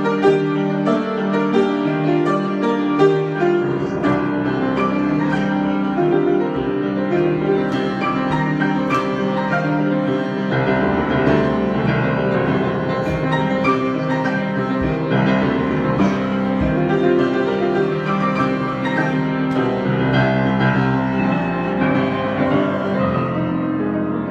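Improvised solo piano playing: a continuous flow of chords and melody notes.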